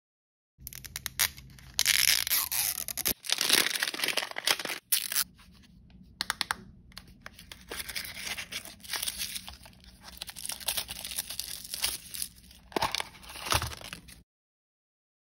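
Crinkly plastic wrapping of an L.O.L. Surprise! toy ball being torn and crumpled by fingernails, with a run of quick clicks about a second in. The tearing is loudest in the first five seconds, then turns to softer crinkling of the wrapping pulled out of the opened plastic ball.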